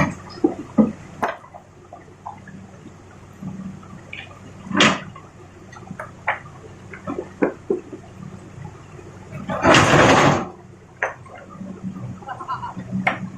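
Rock loading by an excavator: stones knocking and clattering over a faint low engine hum. About ten seconds in comes a loud rush of noise lasting about a second, like a bucketful of rock pouring into a truck bed.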